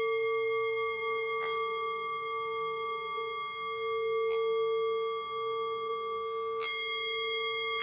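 A singing bowl ringing with a low, wavering hum and several higher overtones, struck again three times so that its ring is renewed each time.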